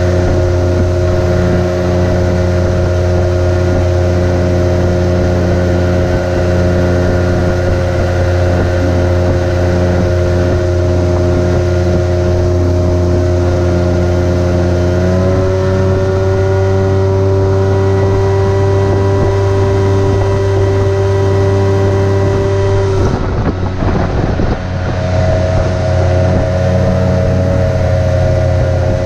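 Small outboard motor pushing an aluminium jon boat along, running steadily. About halfway through its pitch steps up slightly, and near the end the steady tone is broken for about two seconds by a rough rushing noise.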